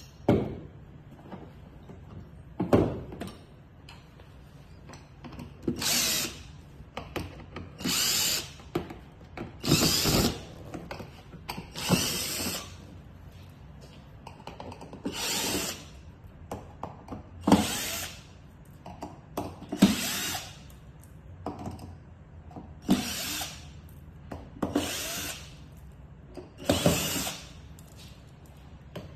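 Power drill-driver run in short bursts of about a second, roughly ten times, about every two seconds, working the screws of an iron frame. A few sharp knocks come in the first seconds.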